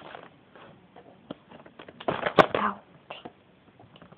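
Plastic blister packaging crinkling and crackling as it is handled and cut open with scissors. There are scattered small clicks, and the loudest part is a burst of crackling with a sharp snap about two and a half seconds in.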